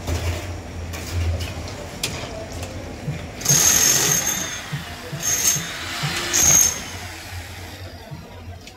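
Handheld electric angle grinder cutting steel rebar, in three short bursts of high-pitched grinding around the middle.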